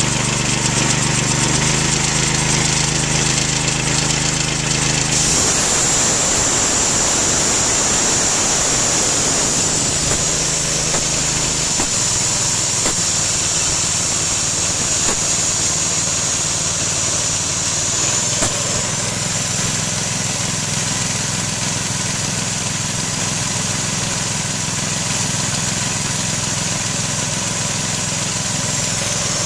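Harbor Freight Predator 212cc single-cylinder four-stroke engine running steadily, driving the military air compressor's pump. About five seconds in, the engine note changes and a steady high hiss joins it and continues.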